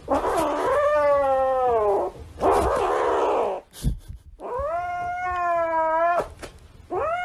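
A domestic cat yowling: three long, drawn-out caterwauls with a short noisy burst between the first two, the last still going at the end. The cat is holding a plush toy while a hand reaches for it, so the yowls read as a protest over its toy.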